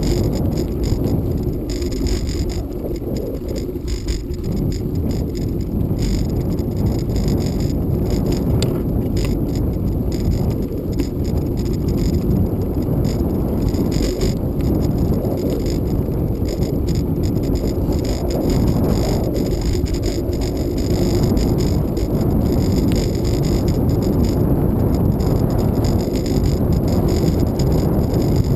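Bicycle riding on a gravel forest road: a steady rumble of wind on a bike-mounted camera's microphone and tyres rolling over the loose surface, with frequent small rattles and knocks as the bike jolts over bumps.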